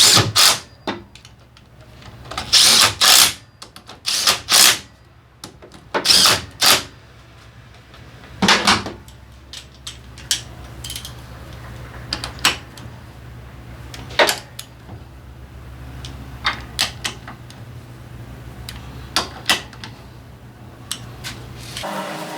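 Irregular clicks and clanks of hand tools and metal parts being handled, some in quick clusters, over a steady low hum that stops near the end.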